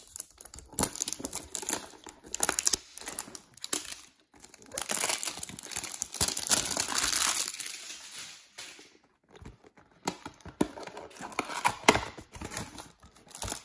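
Cardboard trading-card box being torn open by hand, with plastic wrapping crinkling and scattered taps and clicks of handling. The crinkling is longest and loudest in the middle, for about four seconds.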